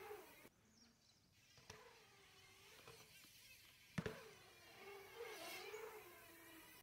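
BMX tyres rolling on a concrete skatepark bowl, a faint whir that rises and falls in pitch as the bike speeds up and slows. About four seconds in comes one sharp knock as the bike hits the bowl's lip.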